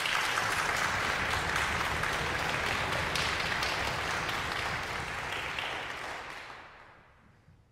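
Audience applause, steady for about six seconds, then dying away near the end.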